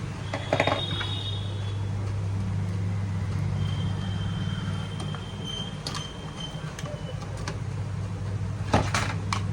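Steady low mechanical hum, with a few sharp clicks and taps of small parts being handled about half a second in, around six seconds in and near the end.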